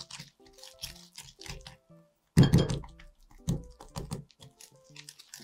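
Wire whisk beating creamed butter and sugar in a glass bowl, in quick scraping strokes, with soft background music under it. A louder thump about two and a half seconds in and a smaller one a second later.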